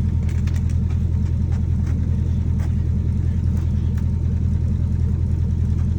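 1979 Chevrolet C10 pickup's engine idling with a steady, even low rumble.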